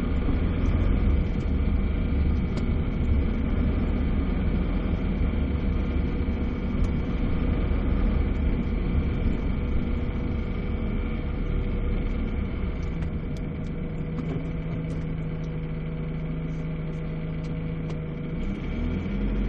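A car's engine and tyre rumble heard from inside the cabin while driving slowly, settling to a quieter, steady idle for several seconds past the middle and picking up again near the end as the car moves off.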